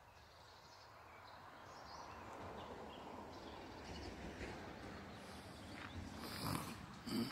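Outdoor ambience: a steady low rushing noise with a few faint bird chirps. Near the end come a couple of sharp footstep knocks as walking begins.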